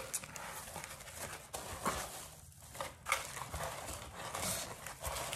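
Packaging rustling as items are rummaged through in a box, with scattered small knocks and taps.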